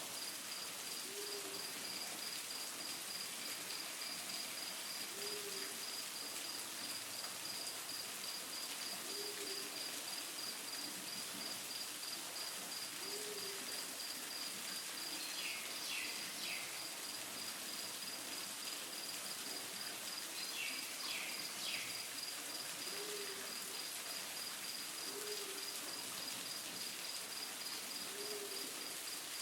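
Outdoor nature sound: an insect's rapid, steady high-pitched trill, with a low hooting bird call repeated about every four seconds, over a steady hiss. Short bird chirps come twice near the middle.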